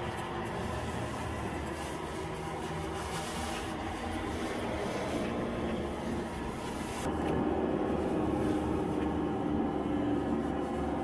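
Car engine and tyre noise heard from inside the cabin while driving. It is a steady rumble that grows louder about seven seconds in.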